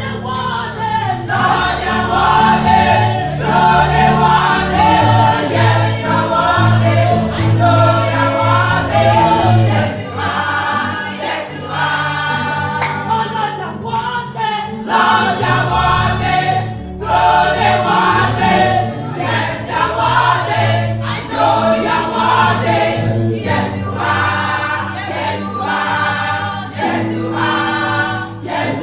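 Gospel choir singing with instrumental accompaniment and a steady bass line, in phrases with short breaks.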